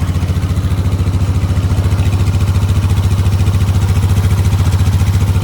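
1995 Polaris Magnum 425 ATV's liquid-cooled single-cylinder four-stroke engine idling steadily with an even pulse.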